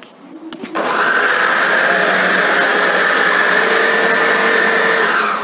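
Food processor running, pureeing ripe mango pulp. The motor starts about a second in, runs steadily for about four seconds, then cuts off.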